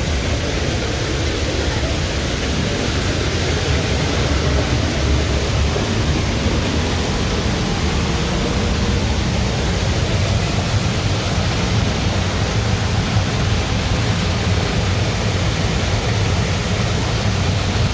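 Upper Düden waterfall rushing, a loud, steady roar of falling water.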